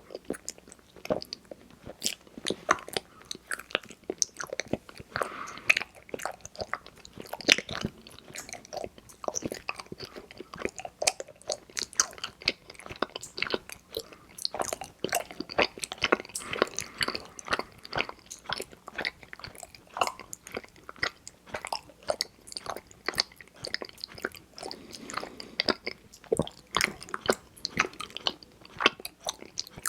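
Close-miked eating of mochi ice cream: soft, sticky chewing with many small wet mouth clicks and smacks, irregular and continuous.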